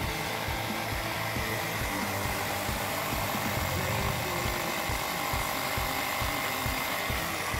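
Portable 12-volt tyre inflator (a mini air compressor) running steadily, pumping air through its hose into a flat car tyre.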